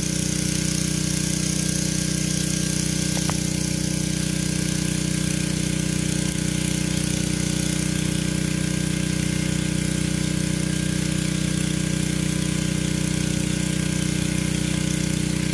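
Portable generator engine running steadily at constant speed, an even hum that does not change.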